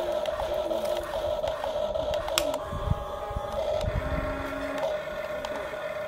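Electric motors of a Huina radio-controlled toy excavator whining as the boom and bucket move, over a steady hum, with short whines that change pitch as each motion starts and stops.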